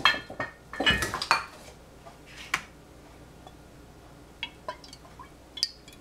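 Kitchen clatter: clinks and knocks of dishes and utensils as an olive oil bottle is handled, a cluster of them in the first second and a half, one more a second later, then a few lighter clicks near the end.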